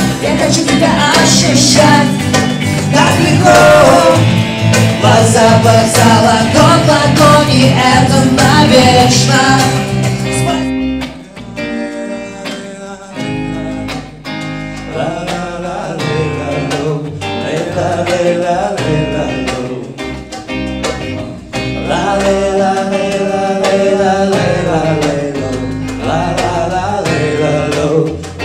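Music: a song with singing over full accompaniment, which cuts off abruptly about ten seconds in. It gives way to an electric guitar played with a hand drum, with a melodic line coming back in near the end.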